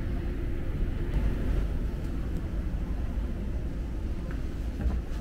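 Escalator running with a steady low rumble as it carries a rider down, with a few light steps onto the metal landing plate near the end.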